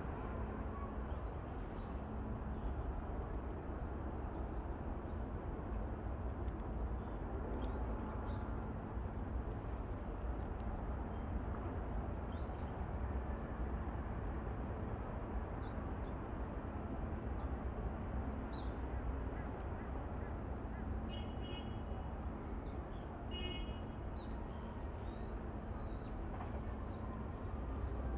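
Small birds giving short, high chirps and calls scattered through, over a steady low background rush.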